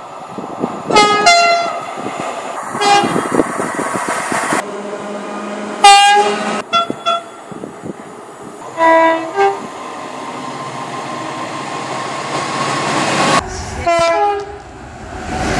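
Locomotive air horns sounding a string of short blasts, each a chord of several notes, over the rumble of moving trains. The background changes abruptly a few times, as one recording gives way to another.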